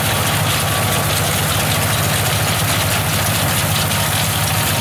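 Tractor engine running steadily under load as it tows a reaper-binder through standing grain, its low pulse even throughout, with a steady wash of machinery noise over it.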